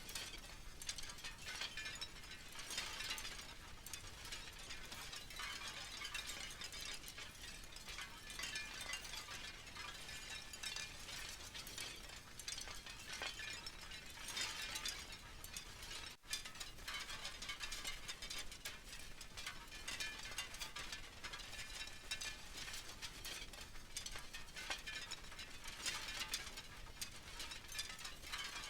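Wind chimes clinking and ringing as they knock against each other in the wind: a steady stream of small strikes that swells into busier jangling spells a few seconds in, around halfway, and near the end. There is a momentary break just past the middle.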